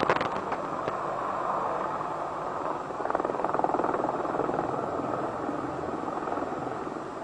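AH-64 Apache attack helicopter flying a display pass: steady rotor and turbine noise with a rapid rotor chop that swells about three seconds in, then eases off near the end. A sharp knock sounds right at the start.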